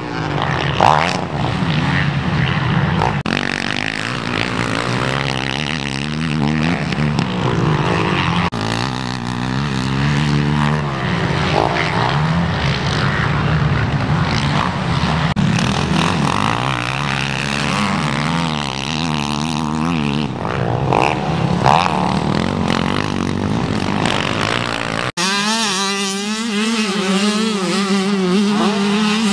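Motocross dirt bikes racing over jumps, their engines revving up and dropping back again and again as the riders work the throttle. About 25 seconds in the sound changes abruptly to a steadier engine note.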